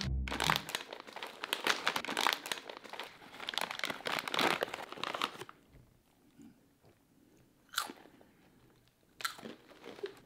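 A plastic snack bag crinkled open, then crunchy Goldfish Epic Crunch crackers being bitten and chewed with loud crunching. The busy crackling stops after about five and a half seconds, leaving a couple of lone crunches.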